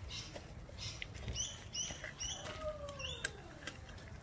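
A German shepherd puppy chewing a raw chicken leg quarter, with a run of short wet clicks and crunches as its teeth work the meat and bone. A bird chirps several times about a second and a half in.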